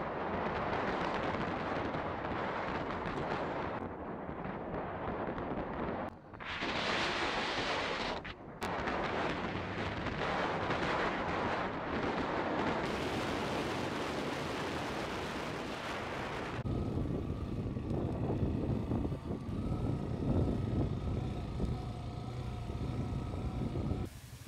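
Wind rushing and buffeting over the microphone of a camera on a moving motorcycle, with the bike's running engine and road noise underneath. The sound changes abruptly several times, with a short dip about six seconds in.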